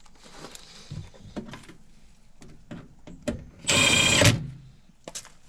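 A few faint clicks and taps, then a small electric motor whirs loudly for about half a second, about four seconds in, and stops abruptly.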